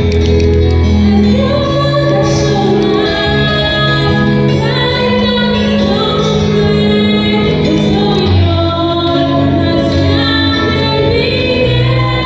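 A woman singing a song over instrumental accompaniment, with long held bass notes under the melody.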